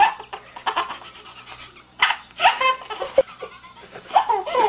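A baby laughing in three short bursts of laughter with quiet pauses between them.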